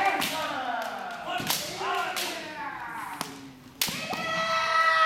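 Kendo sparring: sharp clacks of bamboo shinai striking, mixed with loud kiai shouts from several fencers; after a strike near the end one fencer lets out a long, held kiai.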